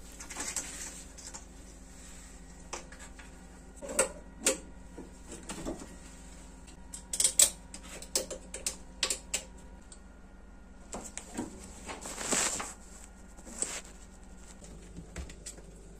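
Scattered clicks and knocks of plastic and metal as a dishwasher's circulation pump motor is set into its mounting and screwed in place, busiest about four seconds in and again from about seven to ten seconds.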